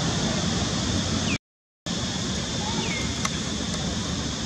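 Steady outdoor background noise with a high, even drone and a few faint short chirping calls. The sound cuts out completely for about half a second around one and a half seconds in, and there is a single sharp click a little after three seconds.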